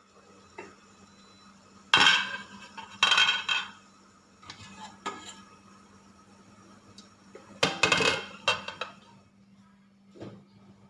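Kitchen dishes and cutlery clattering: three loud bursts of clinking and knocking, with smaller clicks between them.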